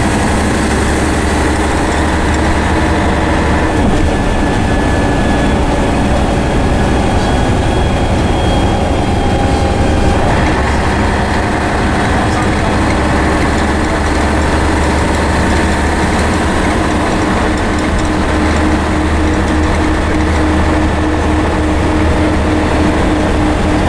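Cabin sound of a Scania N113CRB bus on the move: the rear-mounted 11-litre straight-six diesel and Voith automatic gearbox drone steadily, with road and body rumble. The pitch of the drone shifts slightly a few times.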